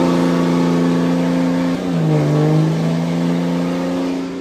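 Lifted diesel pickup on oversized tires doing a burnout: engine held at high revs, its pitch dipping briefly about two seconds in and climbing back, over the hiss of spinning tires.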